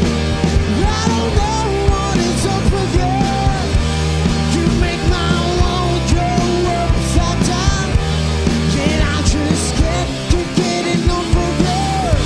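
Rock band playing live: drum kit, bass and distorted electric guitars, with a wavering melody line over a steady beat.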